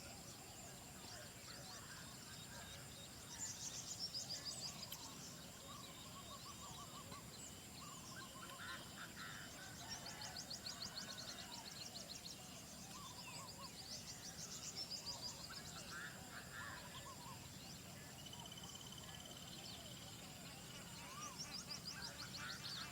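Several birds singing and calling together at dawn: assorted short whistles and chirps, with bursts of rapid, high-pitched trills a few times and a steady buzzing trill in the middle.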